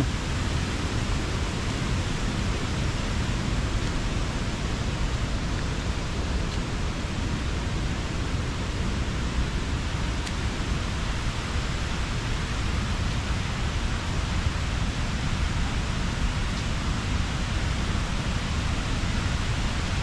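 Steady rush of a waterfall's falling water, an even noise without breaks.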